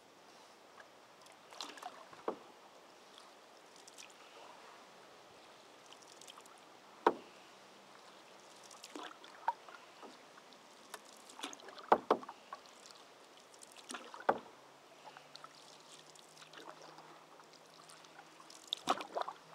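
Canoe paddling: paddles dipping and pulling through calm river water, with a few sharp knocks and splashes every few seconds as a paddle meets the water or taps the canoe.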